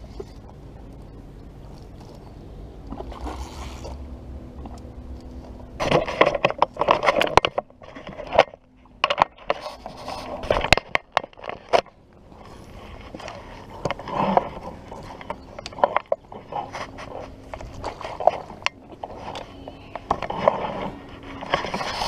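Irregular scraping and knocking from an angler handling a spinning rod and reel while playing a fish, starting in earnest about six seconds in.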